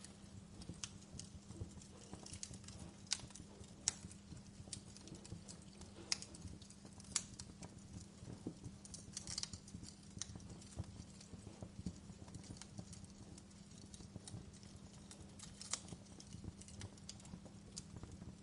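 Wood fire crackling: irregular sharp pops and snaps, a few louder than the rest, over a low steady hum.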